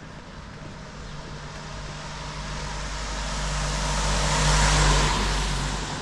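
A motor vehicle driving past on a wet village street. Its engine hum and tyre hiss grow steadily louder, peak about five seconds in, then quickly fall away.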